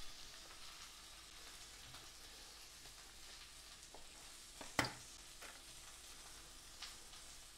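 Kitchen knife trimming a softened cabbage leaf on a wooden cutting board: one sharp knock about five seconds in and a few lighter taps, over a faint steady hiss.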